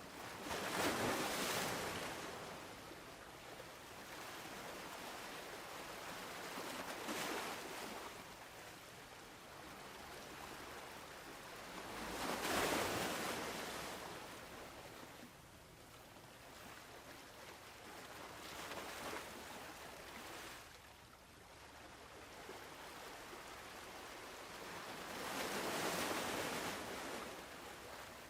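Ocean surf: waves breaking and washing in, one swell of noise every few seconds, with the larger breaks about a second in, near the middle and near the end.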